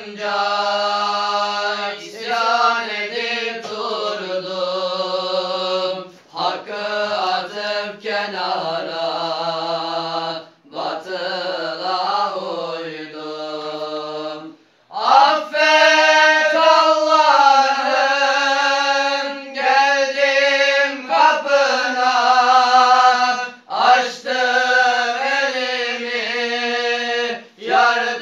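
Young men's unaccompanied voices chanting a slow, ornamented Islamic religious chant in long held phrases, with short breaths between them. About halfway through, the chant steps up to a higher, louder pitch.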